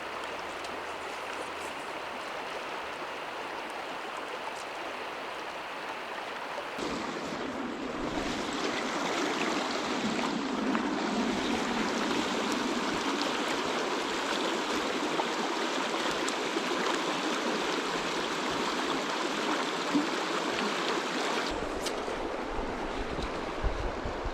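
Gunnison River water rushing steadily. It gets louder and fuller about seven seconds in and shifts again near the end.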